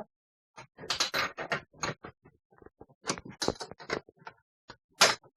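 An irregular run of sharp clicks and taps, several a second, with short gaps between them.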